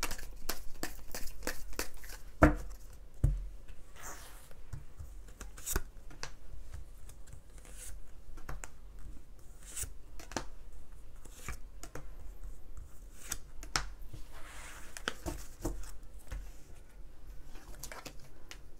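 Tarot cards being shuffled and drawn by hand: a run of irregular soft clicks, flicks and rustles of card stock, with two firmer taps of cards set down a little after two and three seconds in.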